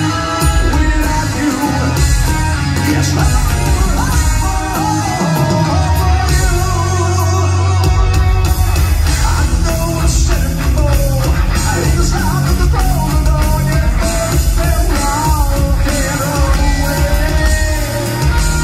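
Live rock band playing loud, with a male lead singer over electric guitars, bass and drums, recorded from within the crowd.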